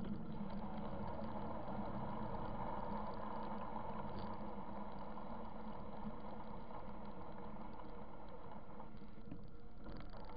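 Harley-Davidson motorcycles running steadily at cruising speed, the engine's low drone mixed with wind and road noise from riding along.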